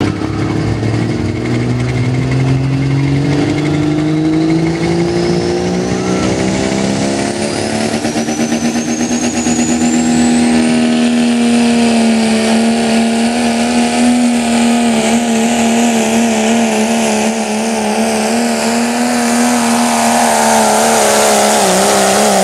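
Dodge Ram diesel pulling truck at full throttle hauling a weight-transfer sled. The engine note climbs steadily over the first ten seconds as a turbo whistle rises with it, then holds high and steady, wavering near the end of the pull.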